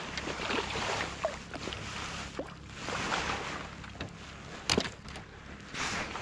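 Water splashing and lapping around a landing net and float tube, with scattered small splashes and one sharp knock about three-quarters of the way through.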